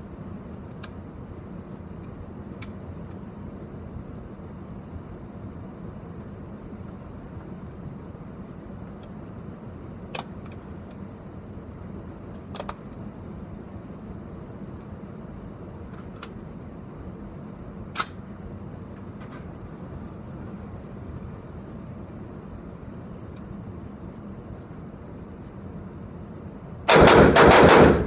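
Newly built lightweight AR-15 rifle fired in a rapid string near the end, about a second of shots running together, very loud and echoing in an indoor range. Before that there is a steady background hum with a few faint sharp reports, one louder one about two-thirds of the way in.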